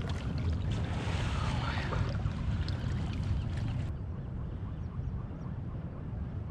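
Wind rumbling on the microphone over water sloshing around a float tube, with a few small knocks. The higher hiss drops off abruptly about four seconds in.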